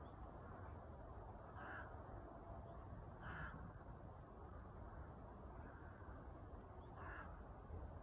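Crow cawing three times, faintly: two short caws close together and one more a few seconds later, over a steady low background noise.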